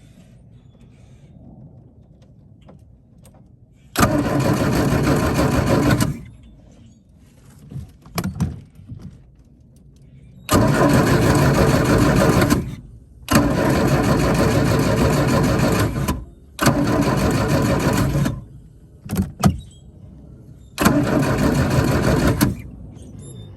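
RC boat's motor run in five bursts of about two to three seconds each, plus a few short blips, each starting and stopping abruptly.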